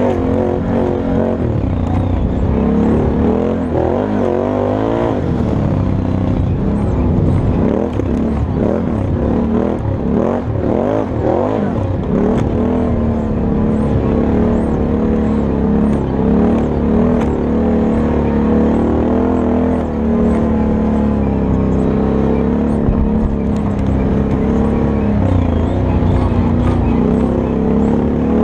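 Can-Am Outlander 1000 XT-P ATV's V-twin engine running under way, its pitch rising and falling with the throttle through the first dozen seconds, then holding fairly steady.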